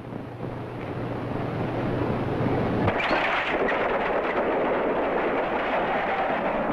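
Horses galloping on an old film soundtrack, heard as a steady rushing clatter that grows louder. A low hum under it stops suddenly about three seconds in.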